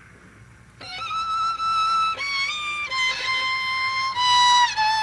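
A solo violin playing a slow melody of long held notes, each step a little lower than the last, starting about a second in.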